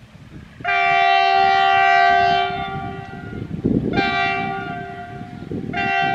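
WDG4G diesel locomotive's multi-note air horn sounding a chord in three blasts: a long blast of about two seconds, then a shorter one, then a third beginning near the end, over a low rumble.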